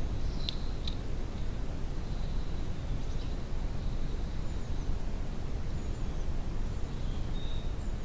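Steady low outdoor rumble with a few short, high bird chirps about half a second and a second in, and fainter thin bird calls later on.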